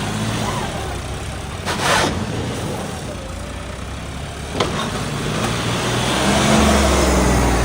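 Diesel tractor engine running while driving along, getting louder near the end. A short rushing noise comes about two seconds in, and a sharp click a little after halfway.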